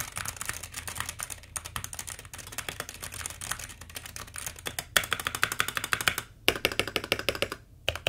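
Fast typing on a SteelSeries Apex Pro mechanical keyboard with Hall-effect (magnetic) switches: a quick, continuous clatter of keystrokes with a short break about six seconds in.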